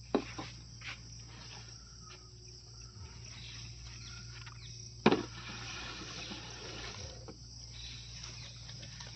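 Insects chirring steadily, with two sharp knocks about five seconds apart and a few lighter ticks between.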